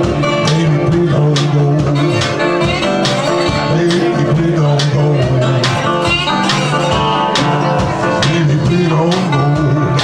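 Blues band playing, guitar to the fore over a bass line, with a steady beat.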